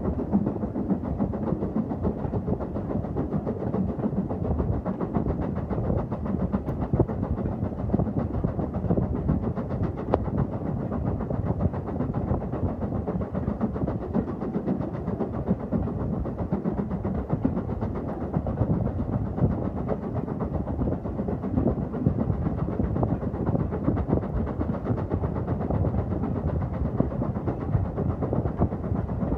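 Steam-hauled passenger train running along the line: a steady rumble of wheels on the rails with many small clicks and rattles throughout.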